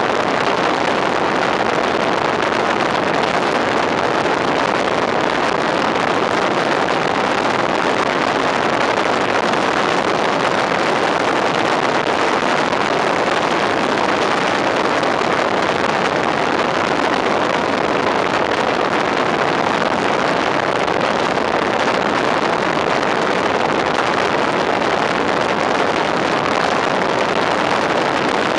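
Steady rush of wind and road noise from a fire engine driving at speed, picked up by a camera mounted outside the cab. No siren or other tones are heard.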